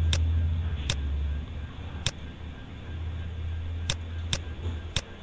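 A steady low electrical hum, louder for the first second and a half, with about six single sharp clicks at uneven intervals. The clicks come from the device used to draw on screen.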